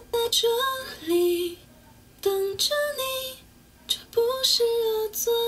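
A woman singing in Chinese, several short held phrases with brief pauses between them, over quiet accompaniment.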